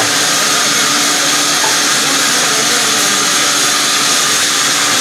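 Sawmill wood-cutting saw running: a loud, steady whirring hiss with a constant hum beneath it.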